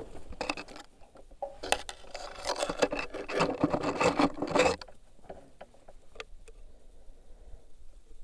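Scraping, rubbing and clicking of hard objects being handled, dense for about five seconds, then a few separate clicks.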